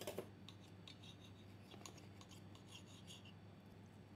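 Faint scraping and a few light clicks of a knife and fork on a plate as beef fillet is cut, over a low steady hum.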